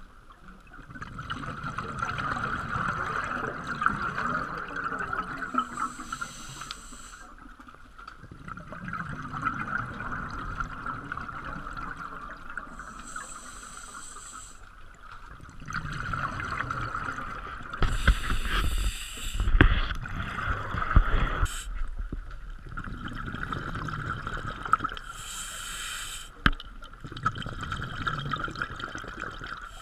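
Scuba diver breathing underwater through a regulator: a short hiss on each inhale, about every six seconds, followed by a longer gurgle of exhaled bubbles. A steady high tone runs underneath.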